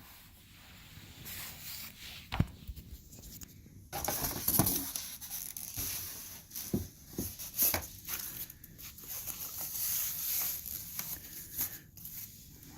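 Packaging rustling and crinkling as a boxed weather station is unpacked, with a few light knocks and clicks from handling.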